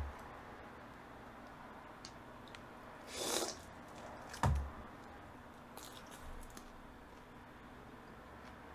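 Faint close-up eating sounds of a bite of sweet-and-sour pork (tangsuyuk) dipped in jjamppong broth: a brief noisy slurp a little past three seconds in, a sharp click about a second later, then soft, quiet chewing.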